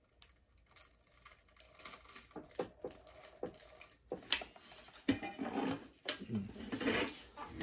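Metal parts of an old Sears-branded Coleman clamped in a bench vise clicking, knocking and grinding as force is put on a stuck part to loosen it; from about four seconds in it becomes a louder metallic rattling and juddering with some ringing. The piece rings too much and judders ('gugugu') because the vise cannot hold it firmly enough.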